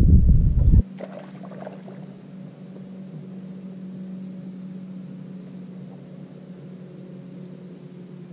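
Loud wind rumble on the microphone for under a second, cut off abruptly, then a steady low hum typical of a bass boat's electric trolling motor running, with a few faint clicks soon after the cut.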